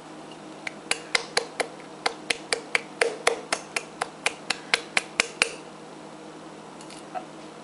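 A palm repeatedly slapping the bottom of an upturned jar of Alfredo sauce to knock the thick sauce out: about twenty sharp smacks at about four a second, stopping about five and a half seconds in.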